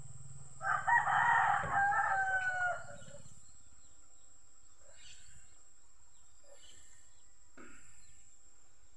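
A rooster crows once, a single call of about two seconds that starts under a second in.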